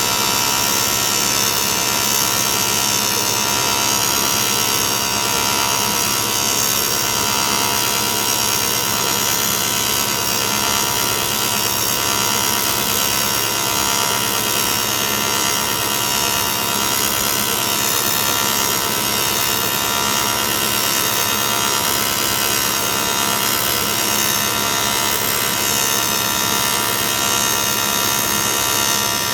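Welding arc on aluminum, a steady buzzing hum with a bright hiss that holds without a break.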